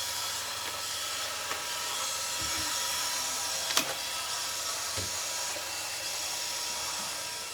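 Robot vacuum running, a steady motor and brush whir with a faint whine, with a few light knocks about two and a half, four and five seconds in.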